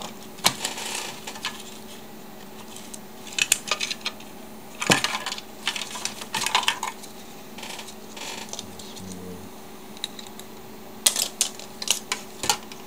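Scattered sharp clicks, rattles and scrapes of hard plastic and a circuit board being handled, as the board of a cordless phone base station is pried off its connector and lifted out of its plastic case. The clicks come in short clusters, the densest near the end.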